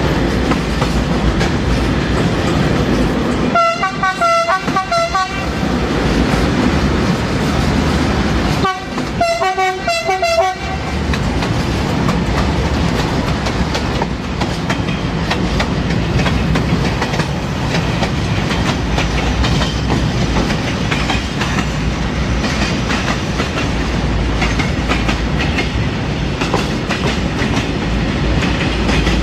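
A train horn sounds two bursts of short toots about five seconds apart. Then a long freight train of covered car-carrier wagons hauled by an electric locomotive passes close by, with a steady rumble and wheel clatter on the rail joints.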